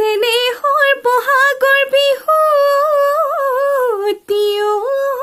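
A woman singing a Bihu song unaccompanied, a high voice with ornamented turns and long held notes; she breaks briefly for breath about four seconds in.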